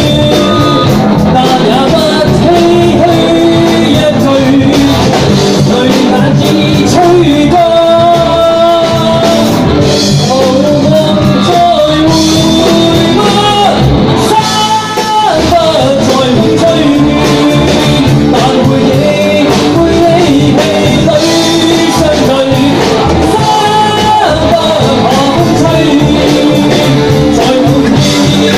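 Live rock band playing: a man singing lead over electric guitar, bass guitar and drum kit.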